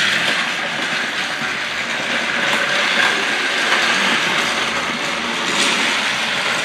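Battery-powered Paw Patrol toy train running steadily along plastic track, its small motor and gears whirring without a break as the wheels roll over the track joints.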